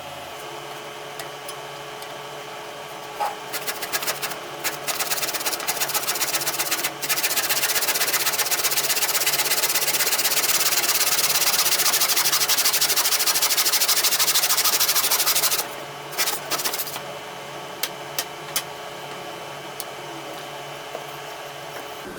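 Small electric power tool, switched on in short bursts, then running continuously for about eight seconds, then a few more short bursts before it stops.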